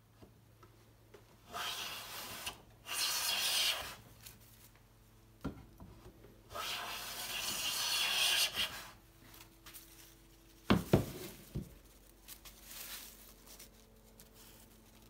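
Restored Stanley Bailey No. 5 type 11 bench plane shaving along a board edge in three strokes, the last one longest, each a hissing swish of the iron lifting a full-length shaving. A few sharp knocks, the loudest sounds, follow a few seconds later.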